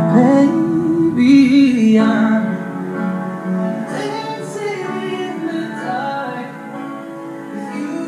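A pop song with a woman singing over instrumental backing.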